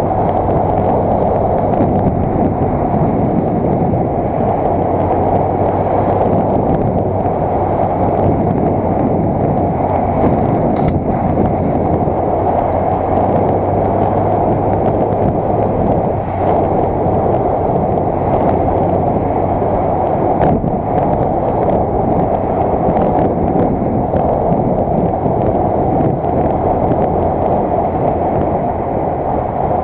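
Steady, dull rush of wind and road noise on a vehicle-mounted camera's microphone while riding at road speed, with a low engine hum underneath.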